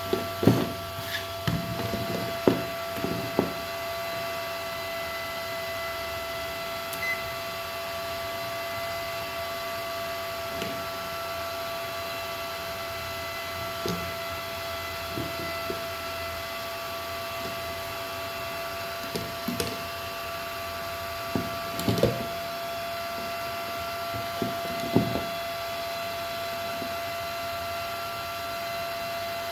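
Scattered short knocks and clicks, a few at a time, as of hard objects being handled, over a steady electrical hum made of several high thin tones.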